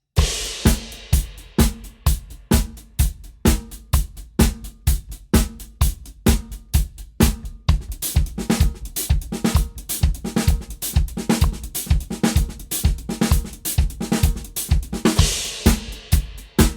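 Drum kit playing a fast groove built on paradiddles as 16th notes, spread across hi-hat, snare and bass drum, starting right on the downbeat. A cymbal crash opens it and another comes near the end.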